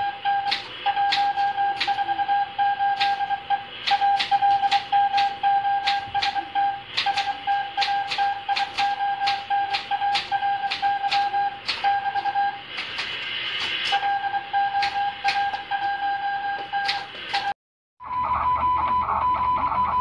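Manual typewriter keys clacking irregularly as a Morse code (CW) signal is copied by ear, over a steady high-pitched Morse tone that keys on and off. Near the end the sound cuts out briefly and a higher Morse tone with hiss takes over.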